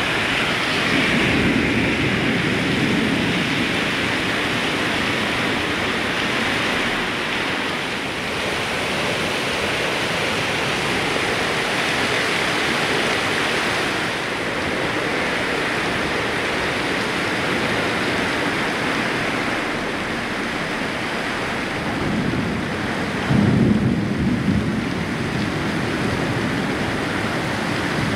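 Heavy rain in a thunderstorm, a steady loud hiss, with a brief louder low rumble near the end.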